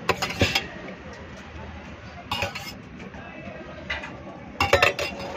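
Steel ladle clinking and scraping against stainless-steel pots, a few quick metallic clinks at a time, four times.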